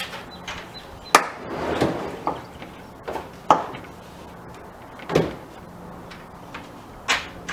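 A series of sharp knocks and clunks, about six in all, with a short sliding scrape about a second and a half in: wooden tool cart parts being moved and handled.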